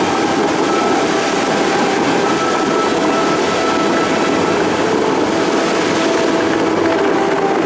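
Fountains of Bellagio water jets shooting up and falling back into the lake: a loud, steady rush of falling water and spray.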